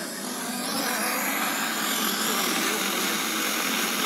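FM tuner static on 105.6 MHz: a steady hiss with a weak distant station faintly underneath. The hiss grows louder about half a second in.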